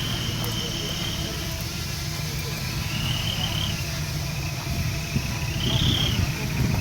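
Diesel engine of heavy earth-moving machinery running steadily with a low rumble. A thin high whine rises and fades about every two to three seconds over it.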